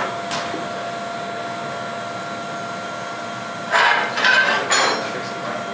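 Glassblowing furnace running with a steady roar and a faint steady whine, with a few short noisy bursts about four seconds in.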